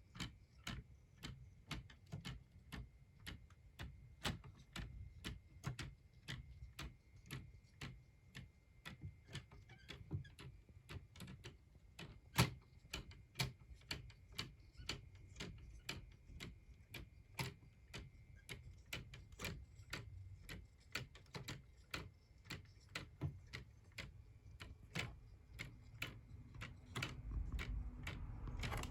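Homemade mechanical clock ticking steadily: its escapement gives an even run of sharp ticks, a few a second, as the clock runs. A low rumble comes in near the end.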